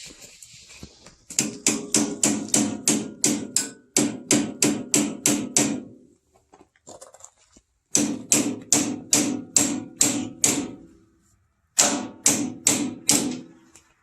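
Hammer striking metal with a ringing tone, in three quick runs of blows at about four a second: a long run, a pause, then a shorter run and a brief last one.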